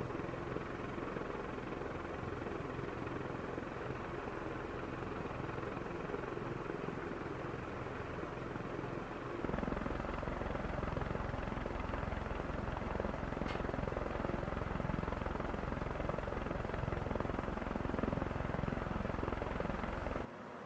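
Havells Speedster 75 cm ceiling fan with four metal blades running at high speed, about 250 to 280 RPM. Its blades make a steady helicopter-like whooshing with little motor hum. About halfway through, a deeper rumble comes in and stays.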